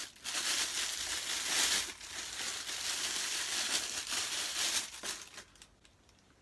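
Clear plastic bag crinkling and rustling as a camera body is unwrapped from it by hand; the crinkling stops about five seconds in.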